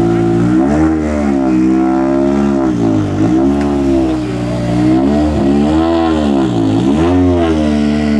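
Citroën DS3 R5 rally car's turbocharged 1.6-litre four-cylinder engine running steadily, then revved up and down repeatedly from about half a second in, its pitch rising and falling with each blip of the throttle.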